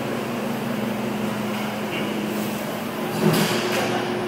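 Busy gym room noise: a steady hum under a general clatter, with a brief louder clank or scrape about three seconds in.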